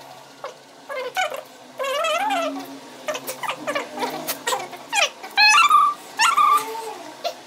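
Coloured pencil scratching across a sketch pad and squeaking in short pitched squeals with the strokes, some rising and one wavering.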